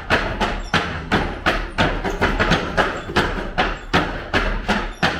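Wooden sheep drafting gate swung rapidly back and forth, knocking against its wooden stops in a steady rhythm of about three knocks a second.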